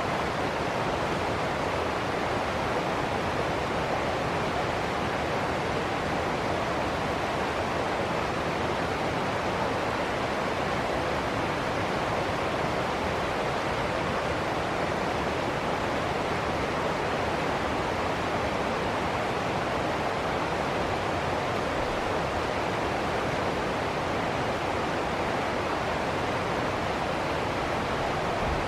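Ocean surf as a steady, unbroken rushing hiss, with no separate wave surges or breaks standing out.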